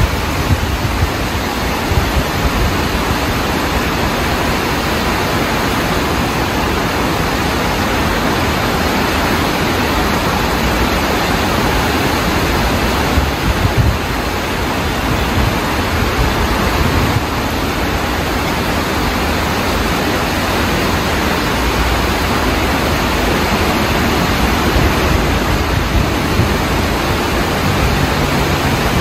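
Floodwater from heavy rain rushing fast down a swollen stream channel: a loud, steady noise of moving water.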